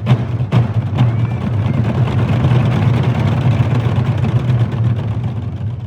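Korean nanta drums struck three times in the beat, then beaten in a fast, continuous drum roll that rumbles for several seconds and eases off at the end.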